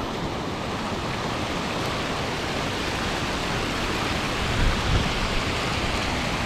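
Steady rush of water tumbling over the limestone cascades and pools, with two brief low thumps about four and five seconds in.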